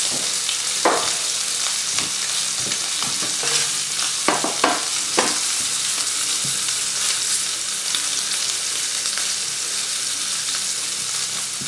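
Rolled, tied pork loin sizzling in hot fat in a frying pan, a steady hiss with a few sharp pops about a second in and around four to five seconds in. The skin is being browned on the hob to help it crisp before roasting.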